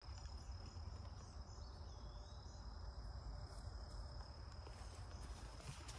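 Outdoor ambience: a steady, high-pitched insect drone over a low rumble.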